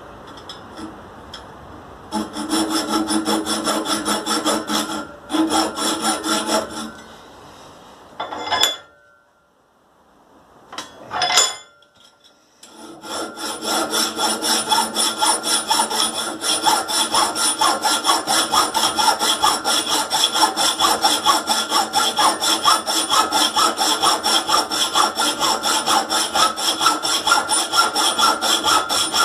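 Hand hacksaw cutting through a 25 mm bore metal pipe in slow back-and-forth strokes, sawing down both walls at once. The sawing stops for several seconds about a quarter of the way in, with two short sharp sounds in the gap, then resumes and runs on steadily.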